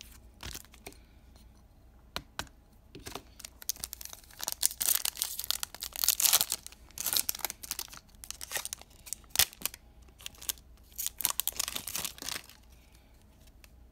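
Baseball card pack wrappers being torn open and crinkled by hand: a run of rips and crackles, busiest in the middle and dying down near the end.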